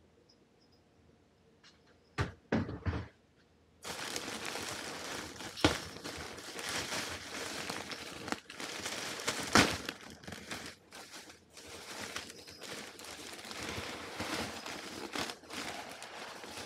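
A few sharp knocks, then continuous crinkling and rustling with sharper crackles, like packaging or a bag being handled, which stops near the end.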